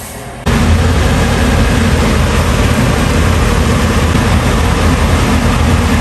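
Chicken pieces boiling hard in water in a wok, a loud, steady, low rushing rumble that starts suddenly about half a second in.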